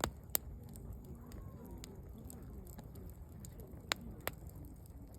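Campfire wood burning with sharp crackling pops: two right at the start and two more about four seconds in, over a low steady rustle of the flames.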